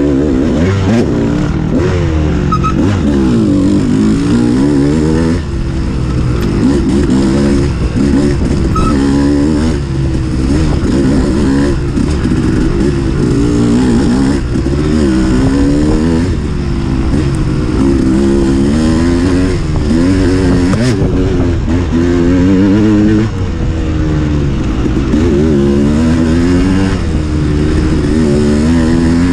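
Dirt bike engine running hard on a trail ride, its revs rising and falling every second or two with constant throttle changes and shifts.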